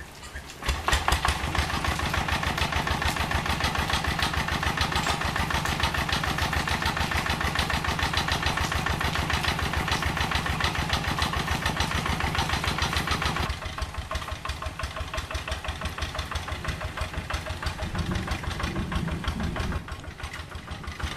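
Single-cylinder diesel engine of a Quick G3000 Zeva two-wheel hand tractor running with a fast, even chug. It comes in abruptly just under a second in, then drops to a quieter, lower running about thirteen seconds in.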